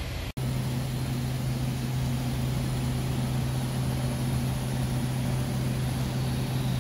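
TIG welding of 304 stainless exhaust tubing with filler rod: a steady low hum and even hiss from the welder and arc. It starts after a brief break about a third of a second in.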